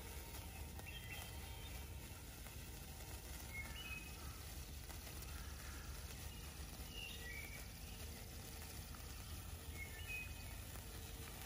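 Quiet outdoor ambience: a steady low rumble with a few short bird chirps, about four groups spaced a few seconds apart. No fizz from the burning sparkler stands out.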